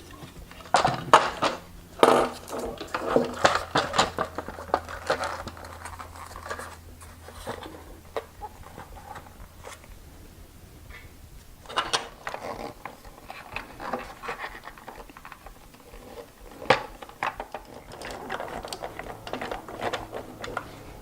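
Irregular metallic clinks, clicks, knocks and scraping of parts being handled and fitted as an electric unicycle is reassembled with its battery going back into the casing. A faint low hum runs under the first half.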